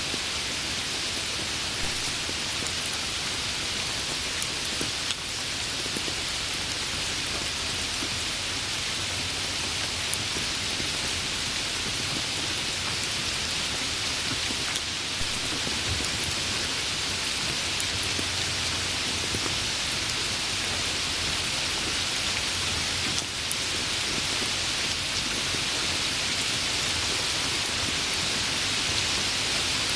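Rain falling steadily, an even hiss of many drops that doesn't let up.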